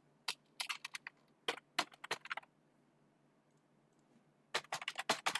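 Computer keyboard keys clicking in two short bursts of typing: a run of keystrokes over the first couple of seconds, a quiet gap, then another quick run near the end.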